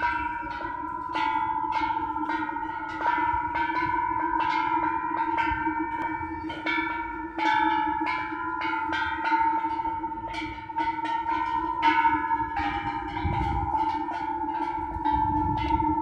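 A long row of hanging Buddhist temple bells being struck one after another in quick, irregular succession, several strikes a second, each bell ringing on so the tones overlap into a continuous ringing chord.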